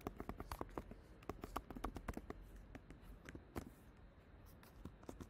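Faint keystrokes on a computer keyboard: a quick irregular run of typing for the first couple of seconds, then a few scattered key presses.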